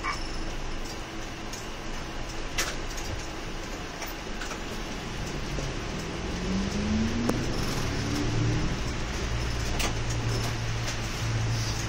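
Heard from inside the cabin, a city bus's engine running in slow traffic, then pulling away about six seconds in with a rising note that settles into a steady low drone. A few light clicks and rattles over it.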